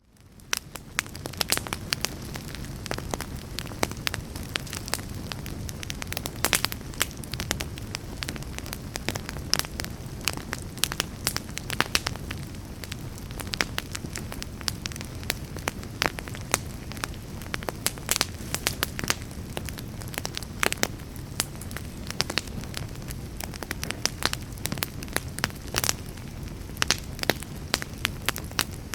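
A fire in a fireplace crackling and popping, with irregular sharp snaps over a steady low rumble of flames. The sound fades in during the first second.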